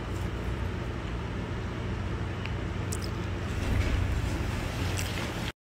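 Steady low room hum with a few faint clicks, cutting to silence for a moment near the end.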